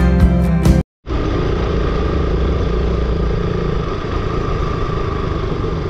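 Background music cuts off about a second in, and after a brief silence a motorcycle is heard running steadily at riding speed, engine and road noise together.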